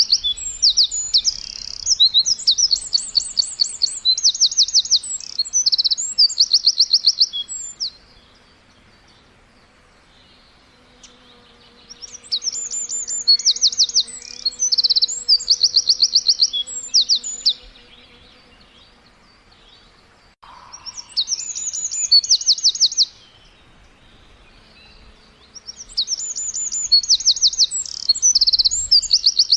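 Bird chirping in bouts of fast, high-pitched repeated notes, each bout a few seconds long, with quieter pauses of a few seconds between them.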